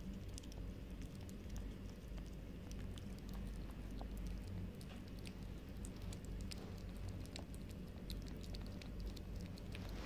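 A cat lapping up soup from a plate: many small, irregular wet clicks of its tongue, over a low steady hum.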